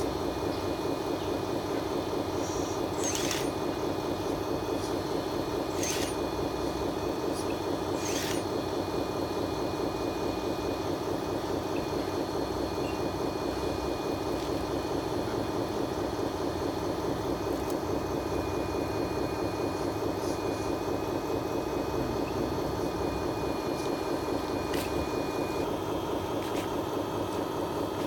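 A 1/14-scale RC Volvo EC360 excavator running steadily as its arm and tracks move, with a few sharp clicks scattered through.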